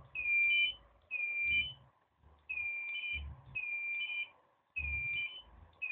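Profoto D1 studio flash head being fired about once a second, six times. Each firing is a short low pop followed by a two-step electronic beep, a steady tone that jumps to a higher one, as the unit recycles and signals it is ready.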